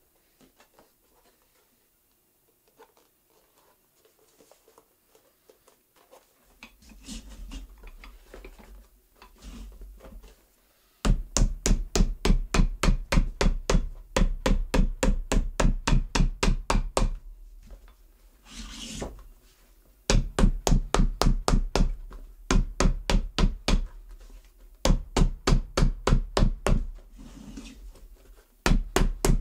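Cobbler's hammer striking a newly glued leather shoe sole in fast, even runs of about four to five blows a second, with short pauses between runs. Softer rubbing and handling come before the hammering starts about eleven seconds in.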